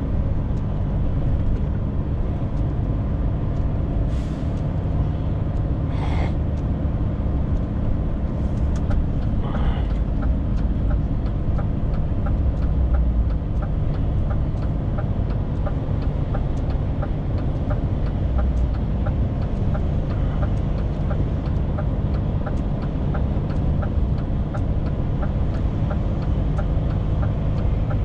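Inside a DAF XF 530 truck cab: the diesel engine runs steadily on a mountain descent, with a few short air-brake hisses in the first ten seconds and a light, regular ticking later on.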